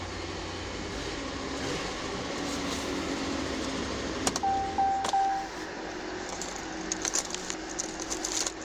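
2019 Dodge Ram 1500 pickup engine idling just after starting, a steady low hum. A brief electronic beep sounds about halfway through, and light clicks come near the end.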